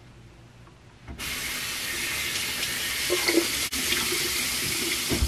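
Bathroom sink faucet turned on about a second in, water running steadily into the basin, then shut off abruptly near the end.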